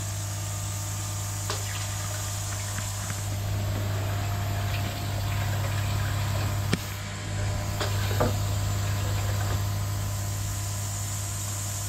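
Steady electric hum of the koi pond's filter pumps, with faint water noise and a few light clicks and knocks as the control box door is handled.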